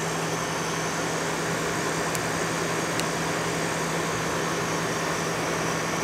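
1960s Westinghouse Custom Mobilaire 5000 window air conditioner running: a steady low hum from its compressor over the even rush of its fan.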